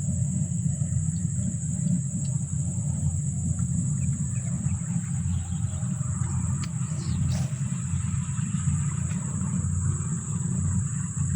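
Steady low rumble of wind buffeting the microphone outdoors, with a steady high-pitched drone behind it and a few faint clicks about two-thirds of the way through.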